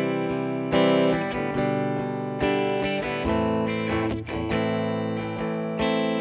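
Background music led by an electric guitar with effects, a new chord struck about every second.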